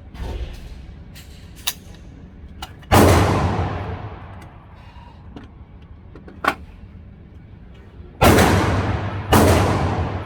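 Three loud AR-15 rifle shots echoing with a long decay, the first about three seconds in and the last two about a second apart near the end, with a few fainter sharp cracks in between.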